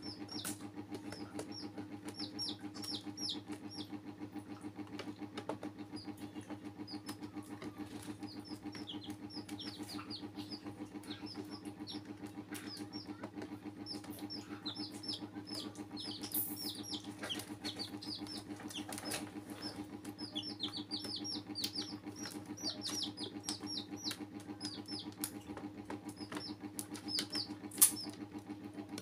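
Young domestic chicks peeping over and over: quick runs of short, high, downward-sliding peeps. Underneath is a steady low hum, with scattered sharp clicks and one louder click near the end.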